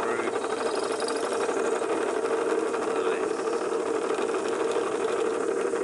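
Drill press running with a steady hum as a twist drill bit bores out a small pinion gear held in a vise, enlarging its bore to fit a 5 mm motor shaft.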